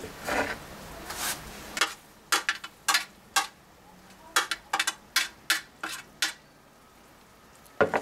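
Kitchen utensils clinking and knocking against cookware: a run of about fifteen sharp, irregular clicks, then a heavier knock near the end.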